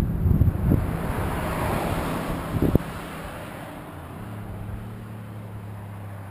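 Honda RC51's 90-degree V-twin with an Akrapovic exhaust fading away after passing, its low exhaust pulses dying down over about three seconds and dropping off sharply. About four seconds in, a faint steady engine hum takes over.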